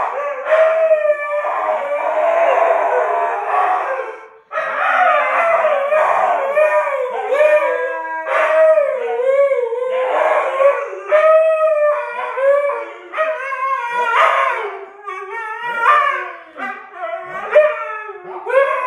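Two white Siberian huskies howling together, long wavering howls that overlap and rise and fall in pitch, with a short break about four and a half seconds in.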